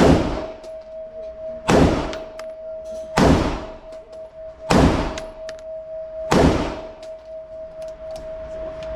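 Five gunshots fired at a steady pace, about one every second and a half, each with a ringing tail.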